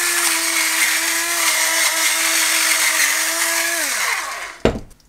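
Electric pepper mill grinding peppercorns: a steady motor whine over a gritty grinding hiss, which winds down in pitch just under four seconds in. A low thump follows near the end.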